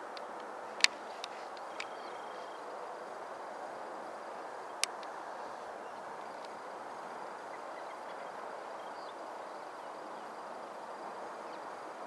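Steady hum of distant road traffic, with a few sharp clicks: the loudest about a second in, two fainter ones just after, and another near the five-second mark.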